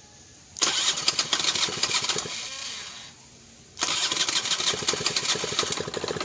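A hard-starting Honda Flash S scooter engine being cranked with its electric starter in two attempts. The first starts about half a second in and fades out after about two seconds; the second starts suddenly near the four-second mark and keeps going. The carburettor has been overflowing and flooding the engine, which the owner puts down to a disconnected automatic-choke wire.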